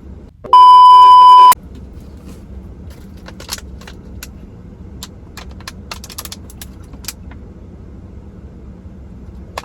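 A loud one-second beep tone, a steady pitch like a censor bleep, about half a second in. After it come scattered light clicks and rattles over the low steady rumble of a car interior.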